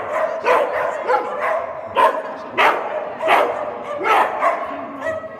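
Dog barking repeatedly, about eight sharp barks at a rate of one to two a second.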